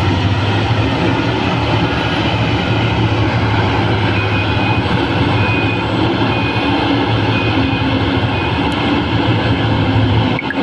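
Heavy mining machinery's big diesel engine running steadily under load, a strong low hum under broad mechanical noise. Intermittent high beeps sound through the middle, and the sound breaks off briefly near the end.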